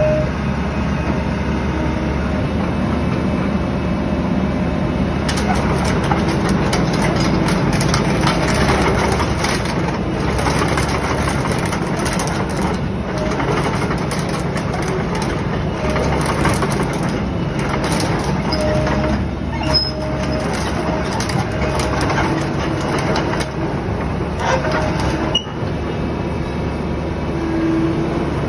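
Sany SY75C excavator's diesel engine running steadily, with many sharp metallic clanks and clicks over it from about five seconds in.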